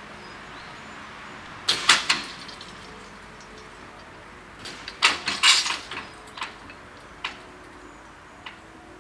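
Level-crossing barrier booms coming down and landing on their rests: two sharp knocks about two seconds in, a louder rattling clatter around five seconds, then a few single knocks, each fainter, as the booms settle.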